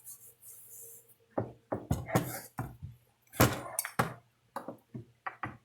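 Irregular knocks and clunks of hard objects being handled and set down, about a dozen in a few seconds, the loudest about three and a half seconds in.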